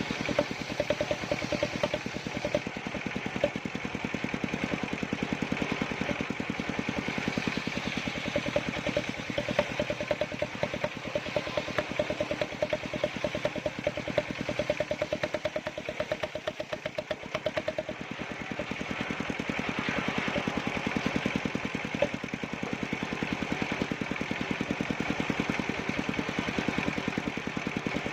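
Small combustion engine of an engine-driven wood-cutting machine running steadily at a constant speed, with a fast, even firing beat.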